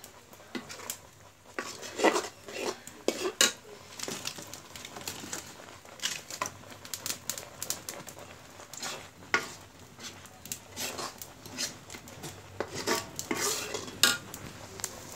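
Metal spoon stirring thick semolina pudding in a black iron karahi, scraping and clinking against the pan at irregular moments as the mixture thickens.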